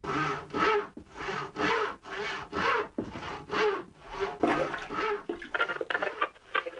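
Rhythmic rasping strokes, about two a second, starting suddenly and turning faster and more broken near the end.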